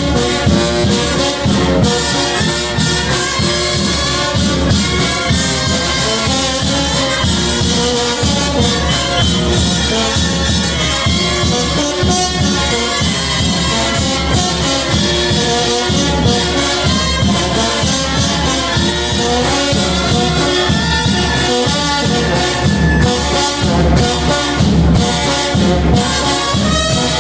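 A brass band (banda) playing continuously with a steady beat, the euphonium (bombardino) among the brass.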